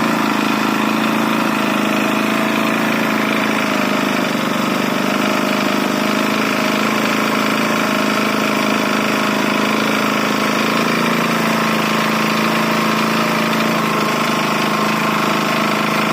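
Water pump motor running steadily with a constant mechanical hum.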